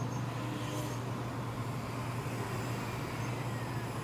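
A car driving in city traffic: steady engine and road noise with a constant low hum.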